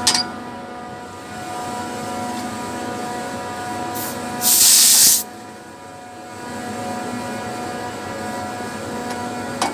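Air-cooled screw chiller running, a steady hum of several held tones. A loud burst of hissing comes about four and a half seconds in and lasts under a second.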